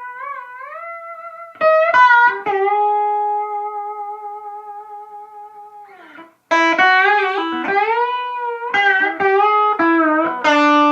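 Electric guitar playing a slow single-note melody, with long sustained notes, string bends and vibrato. The notes stop briefly about six seconds in, then the phrase resumes with quicker notes.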